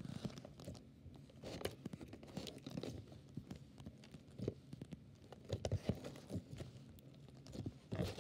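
Clear slime with foam beads being squished and pressed between the fingers, giving faint, irregular crackles and clicks.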